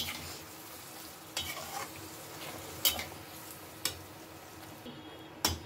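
A perforated steel spatula stirring thin curry gravy in a metal kadhai. The simmering gravy gives a steady low sizzle, and the spatula gives a few scattered light clicks against the pan.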